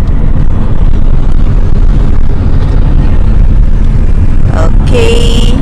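Loud, steady low rumble of a car on the move, heard from inside. Near the end a child's voice cries out briefly.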